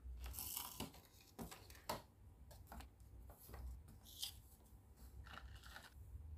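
Toy food pieces and small plastic dishes being handled and set down: faint, scattered light clicks and brief rustles, with a sharper click about two seconds in.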